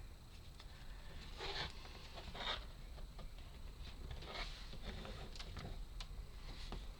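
Wooden puzzle pieces being handled and pushed together: four or five short scraping rubs about a second apart, then a couple of light clicks near the end.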